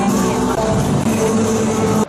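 Music playing at a steady level, stopping abruptly at the very end.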